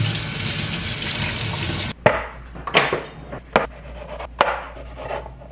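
Kitchen faucet running water over tomatoes, cut off sharply about two seconds in. Then a knife slices through a tomato onto a plastic cutting board, tapping the board about four times, under a second apart.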